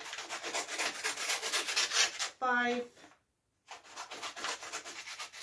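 Scissors cutting through a sheet of paper: a crackly, rasping crunch as the blades close along a long strip. It runs in two stretches with a brief pause just after three seconds, and a short pitched sound comes about two and a half seconds in.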